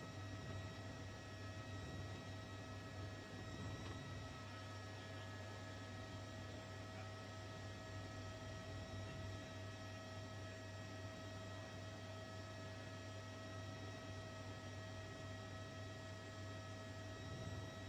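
Steady low electrical hum, like mains hum, with faint steady high tones above it and nothing else.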